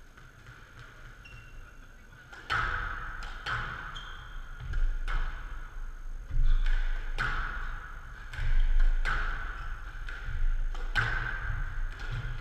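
Squash rally: a ball being struck by rackets and bouncing off the court walls, a string of sharp cracks about one a second, each with a short ringing echo. It starts about two and a half seconds in, after a quiet moment.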